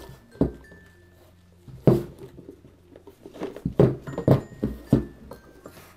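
Hands handling a cardboard puzzle-game box on a wooden table: a series of knocks, taps and scrapes, one sharp knock about two seconds in and a quick cluster a little past the middle.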